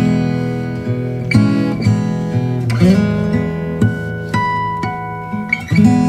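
Background music: acoustic guitar picking and strumming chords, the notes ringing on.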